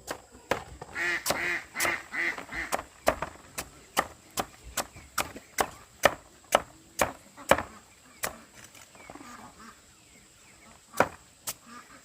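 Knife chopping on a wooden board in steady strokes about two to three a second, pausing a few seconds before two last chops near the end. About a second in, domestic waterfowl honk in a quick run of about five calls.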